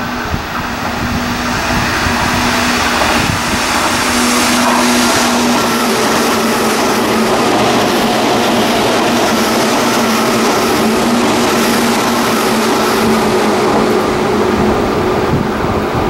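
Tobu electric commuter train running close past on the track, a continuous rumble of steel wheels on rails with a steady hum under it. It builds over the first few seconds and then holds steady and loud.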